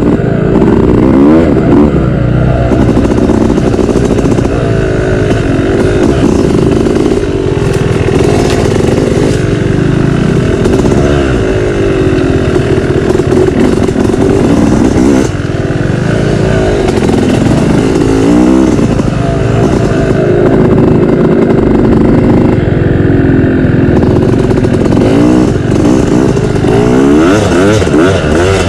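Dirt bike engine revving up and down as the rider throttles and shifts along the trail, its pitch rising and falling every second or two. Loud and continuous.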